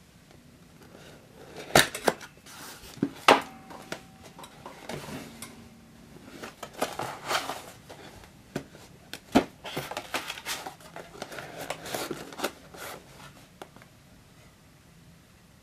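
Hands handling a cardboard display box: a few sharp knocks and taps on the cardboard in the first few seconds and another about nine seconds in, with the lid flap and a small toy box rustling and scraping as they are opened and drawn out.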